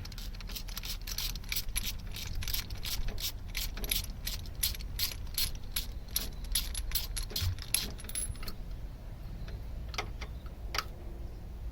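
Socket ratchet clicking rapidly, about four or five clicks a second, as a spark plug is wound out or back in. The run stops about eight and a half seconds in, and two single clicks follow.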